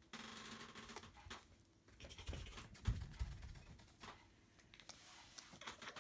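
Cats moving about on a backdrop sheet: paws pattering and scratching on it with light rustling, and a few soft thumps about three seconds in.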